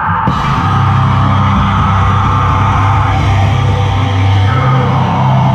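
Heavy metal band playing live: loud distorted electric guitar holding low, sustained notes in a dense wall of sound.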